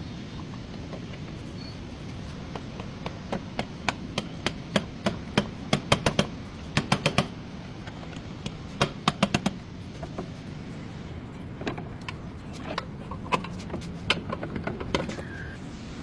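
Sharp taps and knocks from hand-tool work on a car, in irregular runs of quick strikes over a steady low hum.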